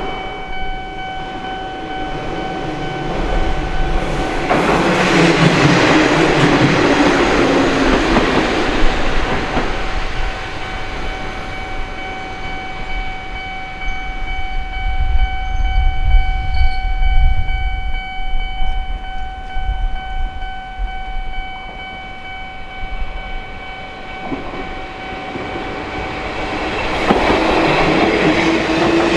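An Eizan Electric Railway electric train passing a level crossing, wheels clattering on the rails. It grows loud about four seconds in, eases after about ten seconds, and swells again near the end. Under it the crossing's warning alarm keeps ringing steadily in several tones.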